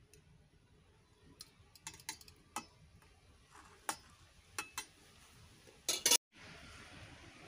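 Metal spoon clinking against a stainless steel bowl as a fish curry is stirred and the pieces pushed into place: a string of sharp, separate taps, with a louder clatter of clicks near the end.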